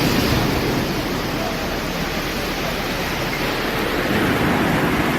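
Steady rushing noise of surf on a beach, with wind on the microphone.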